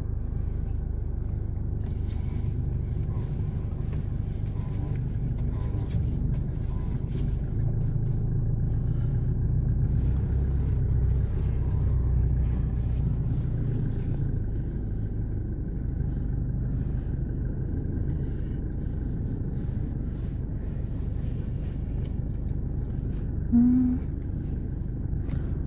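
Steady low rumble of a car's engine and road noise heard from inside the cabin while driving, growing a little stronger around ten seconds in. A brief short tone sounds near the end.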